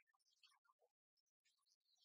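Near silence, with only faint scattered blips.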